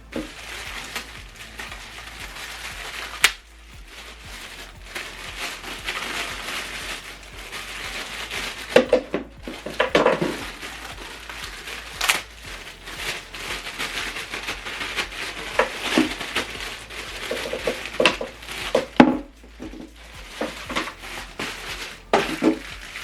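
Plastic packaging crinkling and rustling as accessories are unwrapped and handled, with scattered sharp clicks and a few duller knocks of small items being set down.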